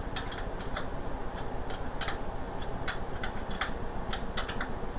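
Irregular light clicks and taps, a few a second, from small mounting parts and hardware being handled and adjusted on an air-horn bracket, over a steady low background noise.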